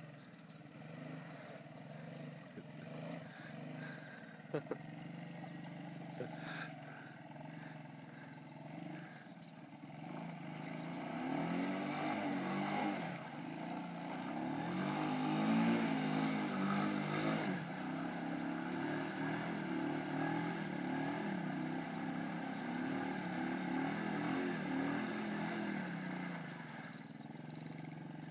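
Honda ATC 185 three-wheeler's single-cylinder four-stroke engine running under load in deep mud. From about ten seconds in it is revved up and down over and over for some fifteen seconds as the machine bogs down and gets stuck, then it settles back to a steadier, lower run near the end.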